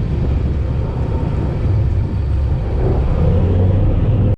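Head boat's engine running steadily with a low drone. It cuts off suddenly at the very end.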